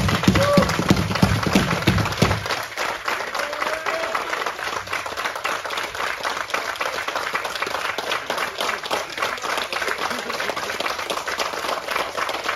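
A room full of people applauding steadily, fullest in the first couple of seconds, with a voice or two briefly calling out.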